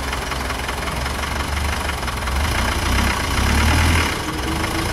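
Land Rover Defender 90 off-road truck's engine running at low revs, its rumble swelling and easing with the throttle and loudest about three and a half seconds in.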